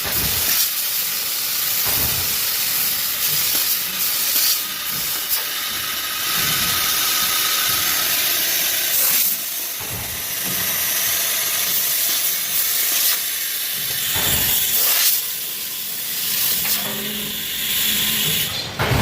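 Laser tube cutting machine at work: a loud, steady hiss of the gas jet at the cutting head, with several short knocks scattered through as the tube and chuck move.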